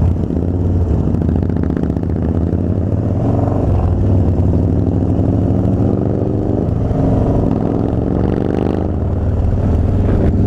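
Harley-Davidson Dyna Street Bob's V-twin engine under way, its pitch rising twice as the bike accelerates.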